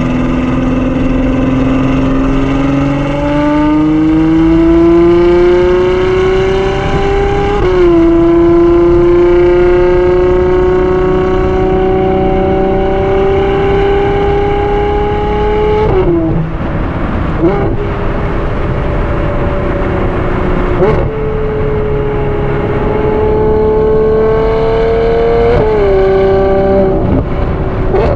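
Ferrari 812 GTS's 6.5-litre naturally aspirated V12 accelerating, heard from the driver's seat. Its note climbs steadily and drops sharply at a gear change about a quarter of the way in. It breaks off briefly past the middle with a couple of short blips, then climbs again with more quick drops near the end.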